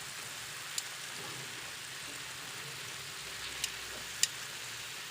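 Squid sizzling as it cooks in a pan: a steady hiss with a few sharp pops, one about a second in and two more near the end.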